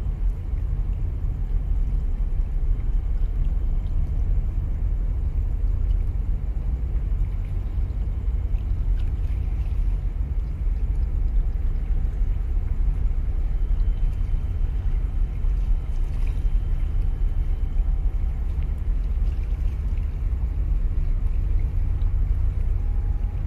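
A steady low rumble with no distinct events, unchanging in level throughout.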